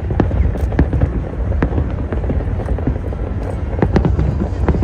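Fireworks display: several sharp firework bangs at irregular intervals over a continuous low rumble.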